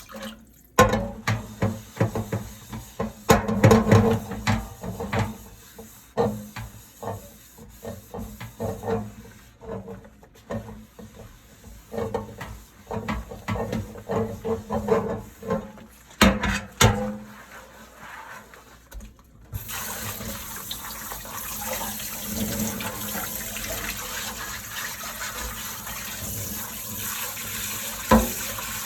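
Dishes being washed by hand at a kitchen sink: irregular clinks of dishes and scrubbing strokes, then the tap turned on and water running steadily for the last third, with one more clink near the end.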